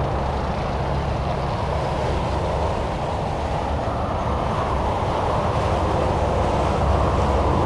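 Steady highway traffic: tyres and engines of passing cars and trucks making a continuous rushing noise with a low rumble underneath.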